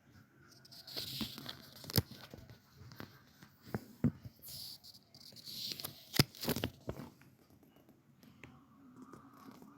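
Unboxing packaging being handled: crinkling and tearing with several sharp clicks. It comes in two busy spells, about a second in and again around five to seven seconds in, then dies down.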